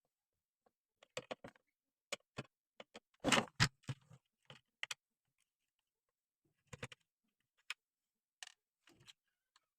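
Irregular clicks and knocks of hard objects being handled, with a cluster of louder clunks about three seconds in and a short pause near the middle.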